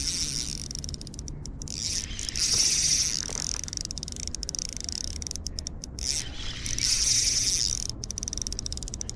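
Spinning reel cranked in short bursts, its gears whirring with light clicks, as a jig is retrieved.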